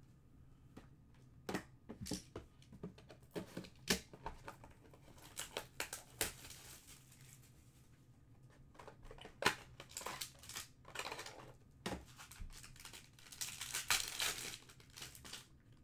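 A Panini Prizm trading-card box being handled and opened: scattered taps and clicks of the cardboard, then a longer stretch of crinkling and tearing of the wrapper near the end.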